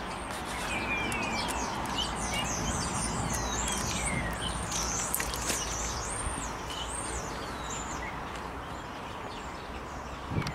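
Small songbirds chirping and trilling, many quick rising and falling notes, over a steady background rush of outdoor noise; a soft knock near the end.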